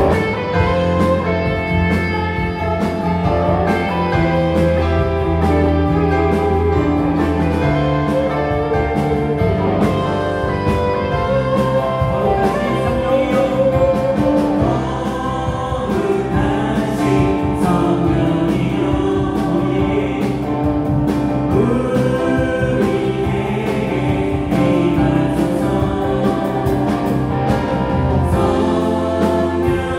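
Live worship band playing a praise song on electric guitar, bass guitar, two keyboards and a drum kit, with a group of singers. The band comes in all at once, with a steady beat and held bass notes.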